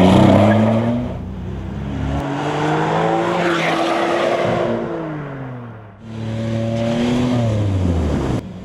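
WaterCar Panther amphibious Jeep's rear-mounted Acura 3.7-litre V6 revving as it drives by, its pitch rising and falling over several takes that break off abruptly.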